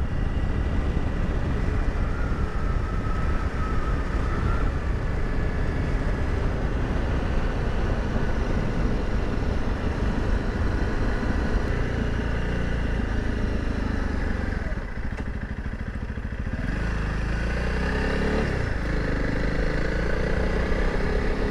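Honda CRF300 Rally's single-cylinder engine running on the move, with steady road and wind noise. About fifteen seconds in, the engine drops back as the bike slows, then rises in pitch as it accelerates again.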